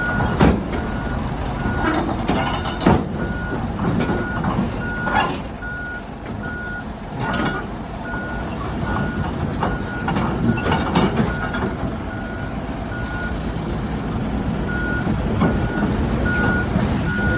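Heavy machine's travel/backup alarm beeping steadily, a little more than once a second, over a diesel engine running, with several sharp metal clanks.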